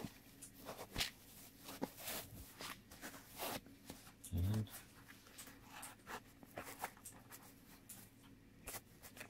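Fingers rubbing, pressing and shifting the cut foam insert of a zippered hard-shell GoPro case (Smatree SmaCase G160), making scattered scratchy rustles and soft taps.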